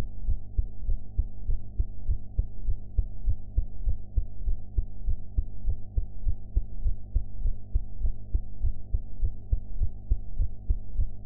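A woman's heartbeat heard through a chest microphone after a meal: a steady, regular run of dull, low lub-dub thumps over a faint steady low hum.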